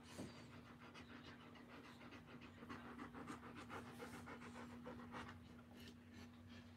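Doberman Pinscher dam panting quickly and faintly while whelping, with a faint steady hum underneath.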